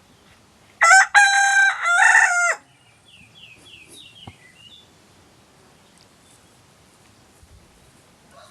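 Silkie rooster crowing once, a loud cock-a-doodle-doo of about two seconds in three parts. It is followed by faint, high chirps from a small bird.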